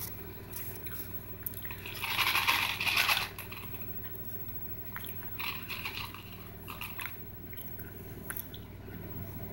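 A small box of jelly beans being handled and picked through. There is a loud rustle about two seconds in, then lighter clicks and rustles, over a steady low hum.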